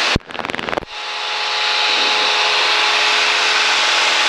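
Cessna 172 cabin noise: the engine and propeller running steadily in flight, with a loud hiss of rushing air over a few steady engine tones. A short buzzy crackle comes just after the start.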